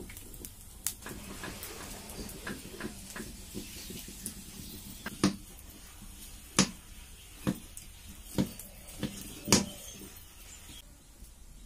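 A spatula stirring and mashing semolina as it thickens into a stiff dough in a steel kadai, scraping and then knocking sharply against the pot about six times in the second half.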